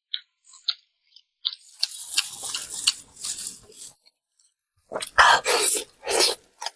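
Close-miked mouth sounds of a person eating: a few short wet smacking clicks, then chewing noise, and several loud breathy bursts near the end.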